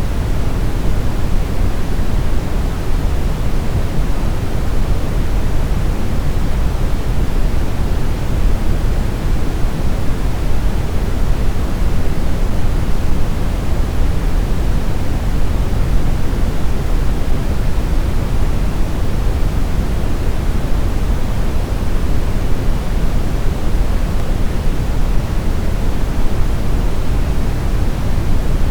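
Steady brown noise: an even, unbroken rush weighted toward the low end, with no tones or events.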